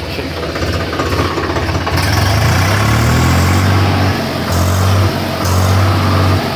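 Swaraj 735 FE tractor's three-cylinder diesel engine running, its note rising about two seconds in and then holding steady, with two brief dips near the end.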